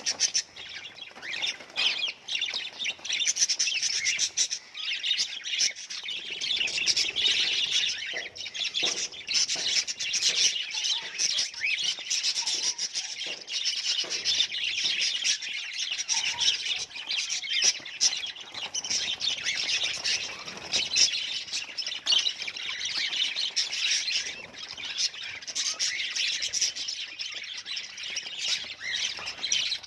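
A group of budgerigars chirping and chattering without pause, many short high chirps overlapping.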